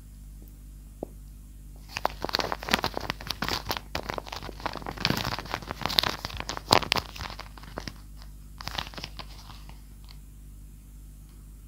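Handmade paper squishy being squeezed, its paper and tape crinkling and crunching: a few scattered crackles, then a dense run of crisp crackles from about two seconds in until about seven, and a short cluster again near nine seconds.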